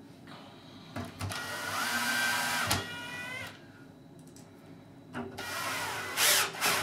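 Cordless screw gun running twice, driving screws home into a mortise lock's faceplate. Each run is a motor whine that rises in pitch, holds, then winds down: the first about a second in, the second near the end.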